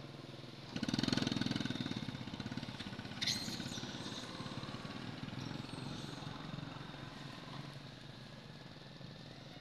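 A passing vehicle engine comes in suddenly about a second in, a fast pulsing run, and fades away over the following seconds. A brief high sound about three seconds in.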